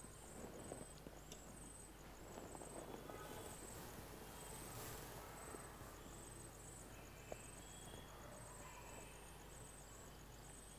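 Faint night ambience of crickets chirping in a steady, even rhythm, with a few soft clicks.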